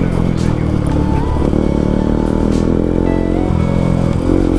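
Motorcycle engine running steadily at riding speed, with background music playing over it.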